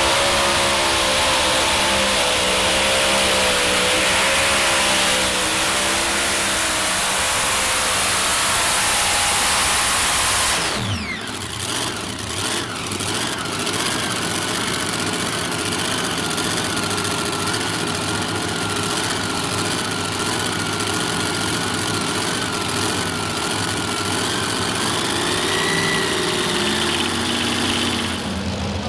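Modified pulling tractor's twin supercharged engines running at full power under load, the pitch wavering as it pulls, then shut off abruptly about eleven seconds in and winding down. Lower, steady engine noise continues afterward.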